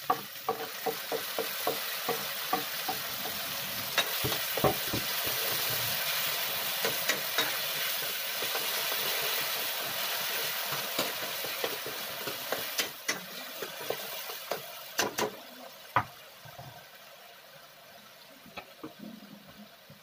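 Chopped tomatoes sizzling in hot oil with browned onion, garlic and ginger in a kadai, while a metal spatula scrapes and knocks against the pan in scattered strokes. The sizzle dies down over the last few seconds.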